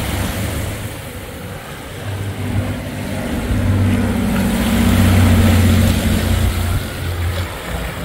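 Small twin-engine propeller plane flying low overhead. Its engines drone, swelling to their loudest around the middle and fading near the end, over a steady rush of wind.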